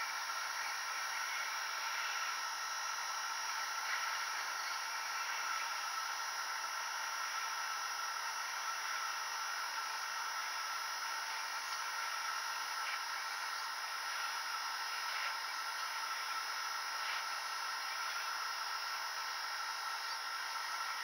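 Hot air gun running steadily, a whirring fan with an even hiss of air, heating a BGA graphics chip to reflow its solder joints.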